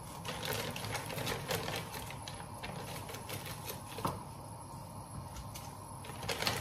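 Plastic bag crinkling and rustling as blocks of dried noodles are taken out of it, in bursts of crackle over the first couple of seconds and again near the end, with a single sharper tap about four seconds in.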